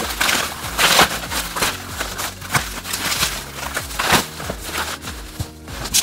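Bubble wrap being pulled and crumpled off a cardboard box: loud, irregular plastic crinkling and rustling.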